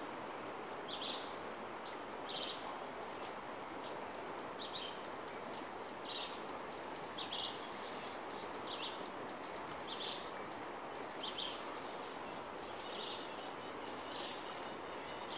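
A bird repeating a short high chirp about every second and a half, about a dozen times, over a steady hiss of outdoor ambience, with faint high ticking.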